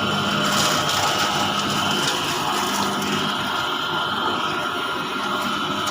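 BSRI jaggery grinder (multi mill) running steadily while grinding jaggery into fine powder, a constant machine hum with a steady whine above it.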